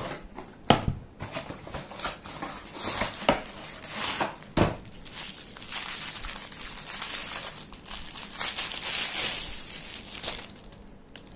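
Packaging crinkling and rustling as a flexible microfiber duster is unpacked by hand, with a couple of sharp knocks, one near the start and one a little before halfway. The rustling is thickest in the second half and dies away near the end.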